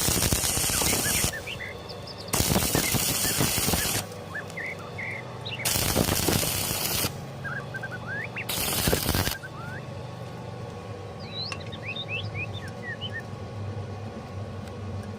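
Stick welding arc crackling in four short runs of one to one and a half seconds each, the last stopping about nine seconds in. After that a low steady hum continues, with birds chirping.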